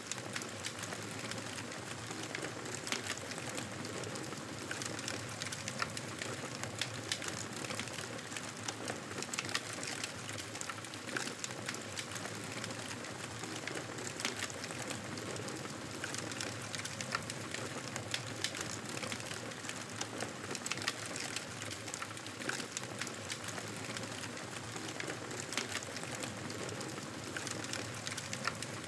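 Campfire burning with steady crackling: irregular sharp pops and snaps of burning wood over a constant hiss.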